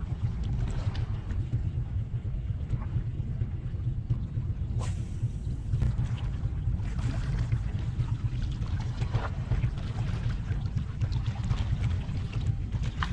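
Wind buffeting a chest-mounted action-camera microphone as a steady, gusting low rumble, with water lapping against breakwater rocks beneath it. Two sharp clicks come about five and six seconds in.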